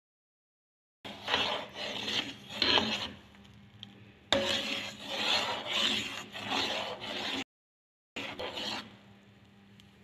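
A spoon stirring a pan of milk, scraping the bottom in rhythmic strokes about two a second, mixing in the honey that has just been added. The stirring breaks off twice in short, dead-silent gaps, then a faint steady hum remains.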